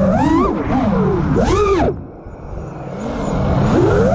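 Motors and propellers of a 6S ImpulseRC Alien 5-inch FPV quadcopter with 1700KV motors, heard from its onboard camera: a whine that swoops up and down in pitch with quick throttle punches. About halfway through it drops off sharply as the throttle is cut, then climbs again near the end, over a steady rush of wind on the microphone.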